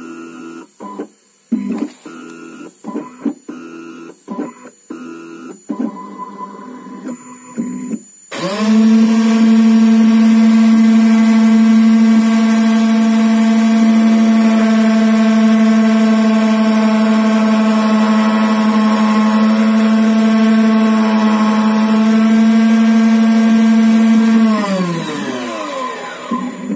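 CNC key-cutting machine: for the first eight seconds its axis motors whine in short start-stop moves, then the cutter spindle starts and runs with a loud steady hum while milling the wave profile into an ABUS key blank. A couple of seconds before the end the spindle switches off and spins down, its pitch falling away.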